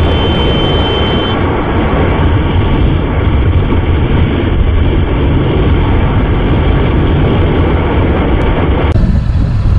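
Wind noise and engine drone from a motorcycle being ridden at road speed, heard from a camera on the bike, heavy in the low end. A faint high whine stops about a second and a half in, and the sound changes abruptly near the end.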